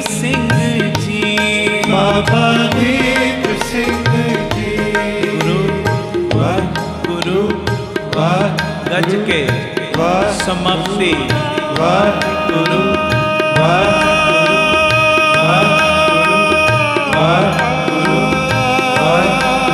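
Devotional kirtan music: tabla drumming in a steady rhythm under sung melody, with long held notes from a reed instrument such as a harmonium.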